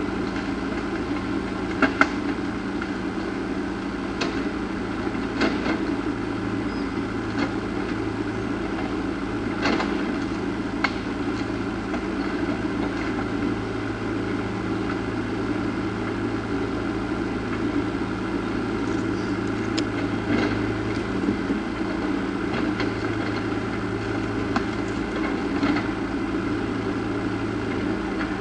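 A steady machine hum with scattered short clicks and taps.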